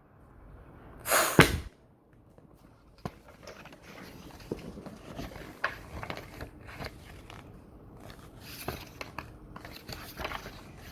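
A short loud rustle about a second in, then scattered light clicks and rustling of things being handled.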